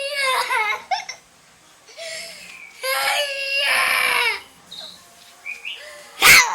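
A young child crying in fright, in several wailing bouts with short pauses between. A sharp, loud burst cuts in near the end.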